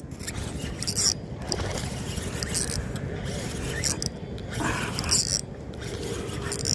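Fishing rod and spinning reel being handled and cranked during a lure retrieve, giving short irregular bursts of scraping noise over a steady low background noise.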